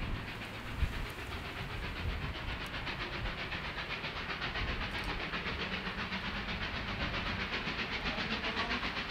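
Two double-headed Victorian Railways steam locomotives, R-class Hudson R711 and K-class K183, working hard up a steep 1 in 48 grade. Their exhausts make a fast, even run of chuffs.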